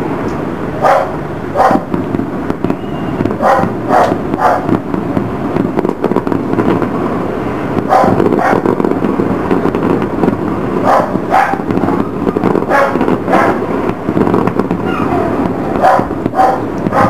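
Distant fireworks display: a continuous rumble of bursts with sharp bangs every second or so, some coming in quick pairs.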